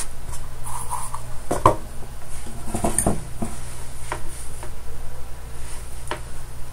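A handful of light clicks and taps as a small circuit board with a freshly tacked pin header is handled and turned over on the bench, over a steady low hum.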